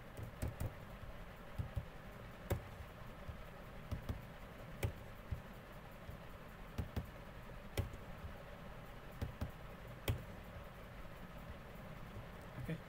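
Sparse, irregular clicks of a computer keyboard and mouse, single keystrokes and clicks a second or more apart, over a faint steady low hum.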